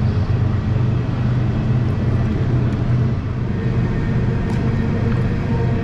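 Steady rushing of river rapids around a canoe running a wave train.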